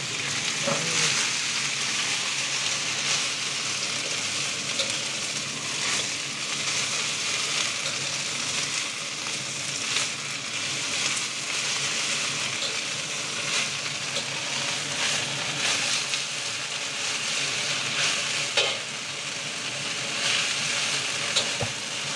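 Native spinach sizzling in a hot wok as it is stir-fried: a steady frying hiss, with the spatula scraping and knocking against the wok every few seconds.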